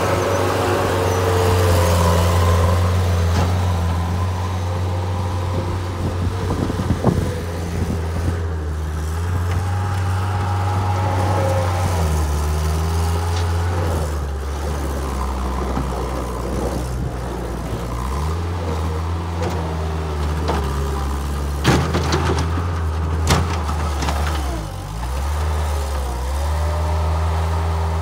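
Bobcat 773 skid-steer loader's diesel engine running as the machine drives and works its bucket, its note dropping and rising a few times, with a changing whine over it. A few sharp knocks come partway through.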